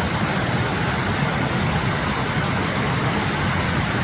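Mountain creek rushing steadily, swollen with snowmelt: a constant roar of water that keeps the same level throughout.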